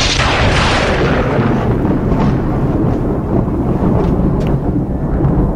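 A thunderclap: a sudden sharp crack that dies away over a second or two into a long, low rolling rumble.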